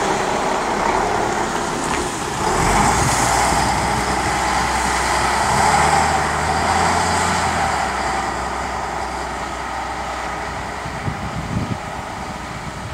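High-floor diesel bus pulling away and driving off. Its engine note grows louder about two seconds in, then slowly fades as the bus moves away.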